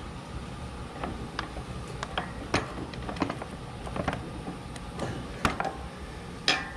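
Irregular metallic clicks and knocks from the rear suspension linkage of a Sherco/Scorpa trials bike as the top dog-bone bolt is wiggled and worked to line it up and push it through, with one louder knock near the end.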